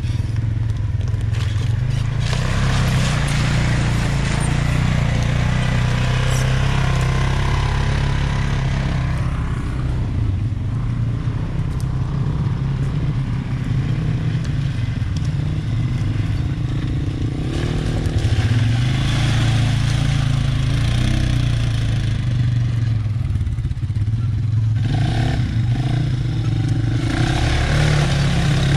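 ATV engine running steadily while riding a muddy trail, its pitch rising and falling a little with the throttle.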